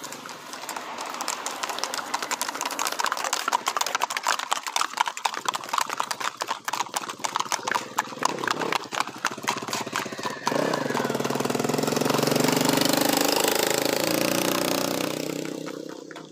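Marchador horses' hooves striking asphalt in a rapid, even run of clip-clops as riders pass at a brisk gait. About ten seconds in a motor vehicle's engine comes up, grows loudest a few seconds later and fades away near the end.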